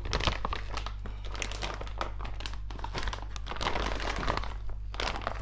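Plastic filament bag crinkling and rustling as it is handled, with irregular crackles throughout, over a steady low hum.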